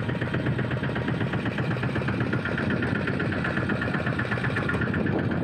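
Fishing boat's engine running steadily at low speed, an even, fast pulsing throb.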